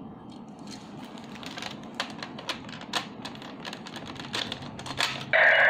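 Hard plastic clicks and clatter from handling a DX Gaburevolver toy gun, an irregular run of sharp clicks. Just before the end the toy's loud electronic voice and sound effect begin.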